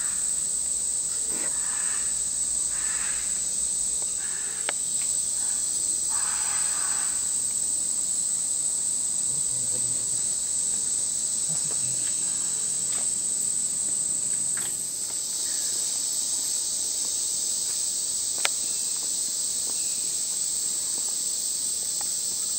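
Steady high-pitched drone of a rainforest insect chorus, growing fuller about two-thirds of the way through, with one short sharp tick near the end.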